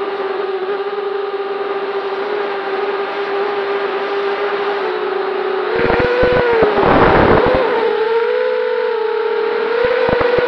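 Vortex 285 racing quadcopter's brushless motors and propellers whining in flight on a 4S battery. The pitch holds steady, then rises and dips with the throttle about six seconds in, under a louder rough rush of air that lasts about two seconds.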